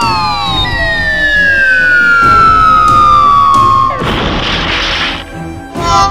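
Cartoon sound effects: a long whistle gliding down in pitch, then a crash about four seconds in that lasts about a second. Background music returns near the end.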